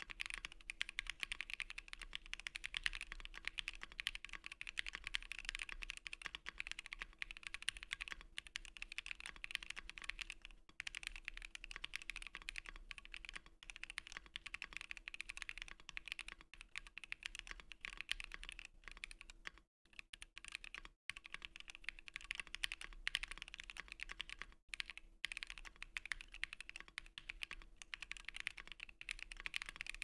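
Continuous fast typing on a Bakeneko60 mechanical keyboard with EVA foam and Kinetic Labs Husky linear switches, lubed on the rails and springs: a dense run of keystrokes, broken by a few short pauses about two-thirds of the way through. A faint steady hum sits beneath.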